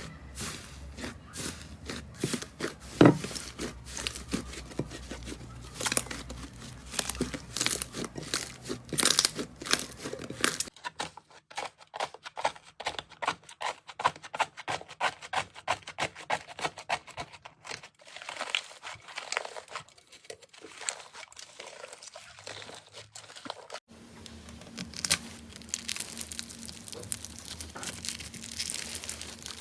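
Slime being pressed, squeezed and poked by hand, giving a dense run of small crackles, pops and clicks. The sound changes abruptly about ten seconds in and again near twenty-four seconds, as one clip gives way to another.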